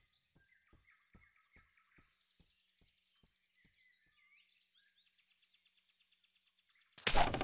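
Quiet forest ambience of faint bird chirps and insect buzz, with a run of faint soft taps, two or three a second, fading out within the first four seconds. About seven seconds in comes a sudden loud burst of noise lasting about half a second.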